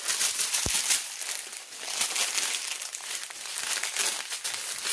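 Strips of small sealed plastic bags of diamond painting drills crinkling as they are handled, with a low thump a little over half a second in.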